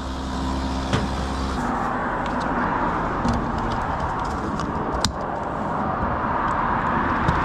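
BMW F90 M5's twin-turbo V8 running steadily. About a second and a half in, an even rush of tyre and road noise from the moving car takes over. There is a sharp click about five seconds in.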